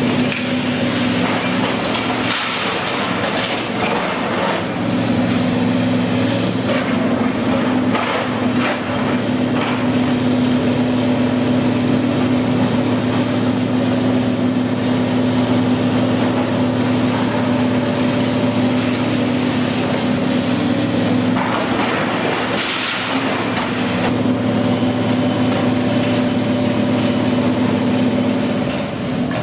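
Diesel engine and hydraulics of a Doosan DX300LC tracked demolition excavator running steadily under load, with a few bursts of crunching and cracking as its crusher jaws break concrete and brick. The biggest burst comes about three-quarters of the way through.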